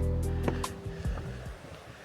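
Background music, plucked notes over a held chord, fading out about halfway through.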